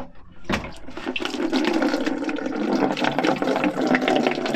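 Engine coolant pouring out of a Mk2 VW Caddy SDI's opened cooling system and splashing as it drains, starting about half a second in and running steadily.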